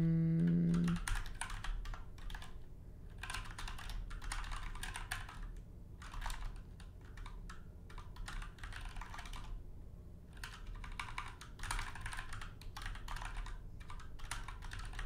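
Computer keyboard typing in quick bursts with short pauses between them, as shell commands are keyed in. A short steady hum sounds at the very start.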